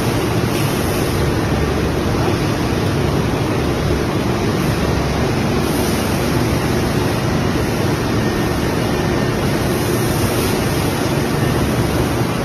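Steady machine-shop noise: an even rushing sound, heaviest in the low range, from machinery running on a factory floor, with no distinct knocks, tones or changes.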